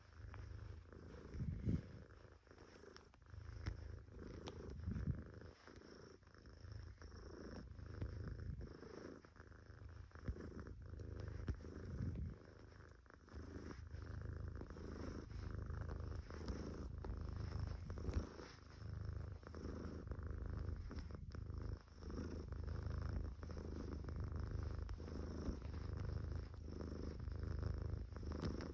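Domestic cat purring: a low, continuous rumble that swells and eases with each breath.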